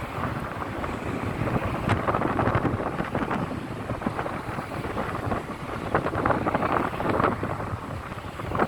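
Gusty wind buffeting the microphone: an uneven rushing noise that swells and drops.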